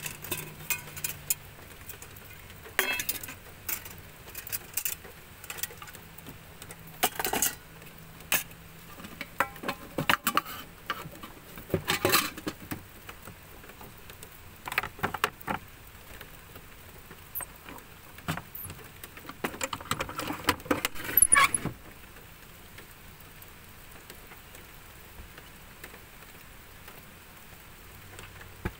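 Stainless steel camping cookware clinking and clattering as it is handled: irregular metal knocks and jangles that stop about three quarters of the way through.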